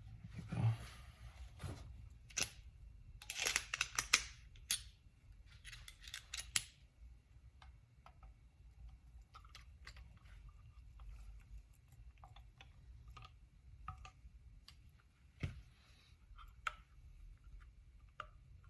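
Small metal parts of an Andis Master hair clipper being handled and fitted during reassembly: three short bursts of scraping and rattling in the first seven seconds, then scattered light clicks.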